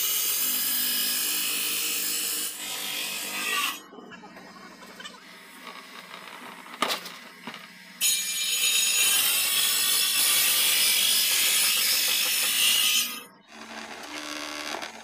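Circular table saw ripping a thick wooden plank lengthwise: a loud, high hissing cut with a steady motor hum beneath. It sounds for the first few seconds and again from about eight seconds until near the end, with a quieter stretch and a single sharp click in between.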